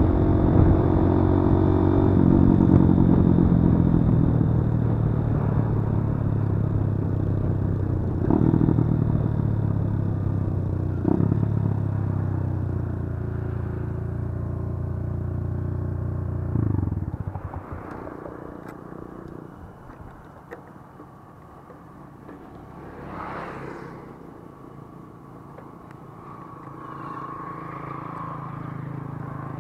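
Kawasaki D-Tracker 150's single-cylinder four-stroke engine running as the bike is ridden, its note gradually falling as it slows. A little over halfway through, the engine sound drops away suddenly, leaving quieter outdoor sound with a brief rising and falling swell.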